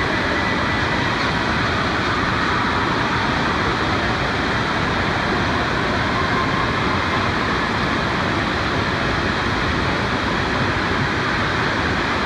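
Steady rush of water pouring out of a tube slide's exit and churning the splash pool.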